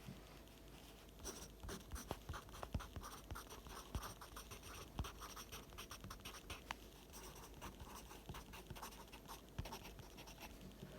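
Pencil writing on paper: quick irregular scratching strokes with light taps of the lead, busiest after about a second in and easing off near the end.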